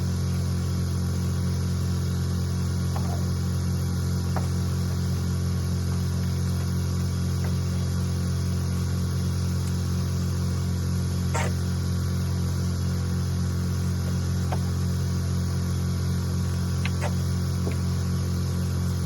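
A motor running steadily with a low, even hum, with a few faint knocks scattered through.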